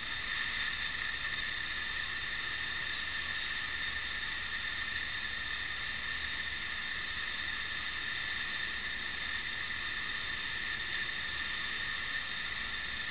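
Steady background hiss with a constant high-pitched whine and no distinct event.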